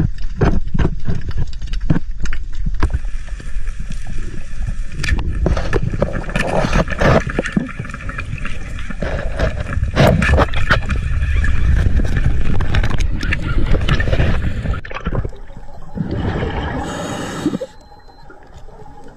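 Water sloshing and gurgling with many irregular knocks and clatters over a low rumble; it drops away sharply near the end.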